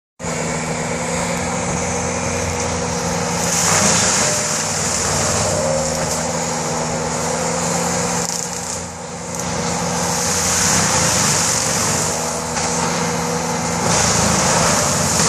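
Tracked skid-steer loader running hard with a forestry mulcher head spinning and shredding brush and saplings: a steady engine drone under a loud grinding hiss. The hiss gets louder about four seconds in and again from about ten seconds, with a brief dip near nine seconds.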